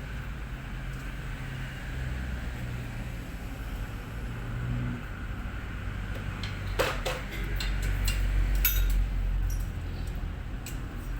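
Low steady rumble with a cluster of sharp clinks and knocks between about six and a half and nine seconds in.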